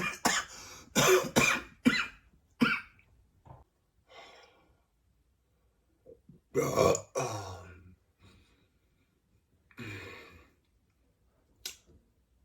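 A man coughing in a fit of sharp, harsh bursts, several in quick succession in the first three seconds, then a longer hacking cough in the middle and one more toward the end. It is the chesty cough of a respiratory illness that has kept him coughing up phlegm.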